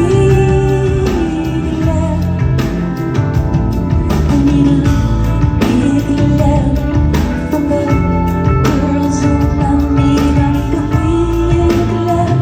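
Live band music: a steady drum beat about twice a second under bass and keys, with long held sung notes.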